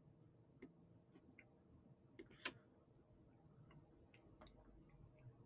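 Near silence with faint, irregular small clicks, one a little louder about two and a half seconds in.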